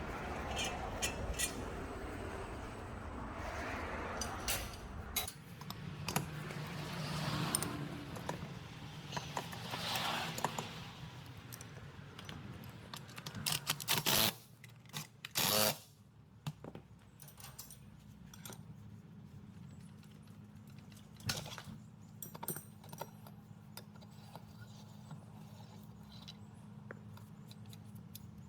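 Hand tools and small metal parts clinking, scraping and clattering during work on the compressor's valves, with two louder short noisy bursts about halfway through.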